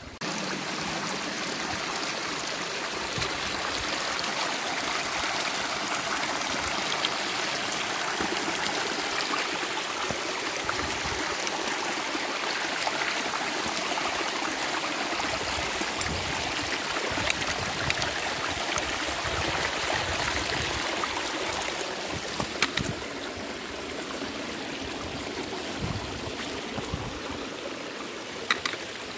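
Small woodland stream running and trickling over rocks and fallen beech leaves in a steady rush. It eases a little about two-thirds of the way in, with a few light knocks near the end.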